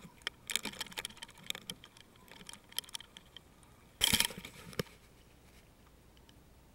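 Underwater fishing camera being reeled up through the water, with a run of crackling clicks and knocks on its housing. A loud burst about four seconds in as it comes up at the boat's side, then a single knock just after.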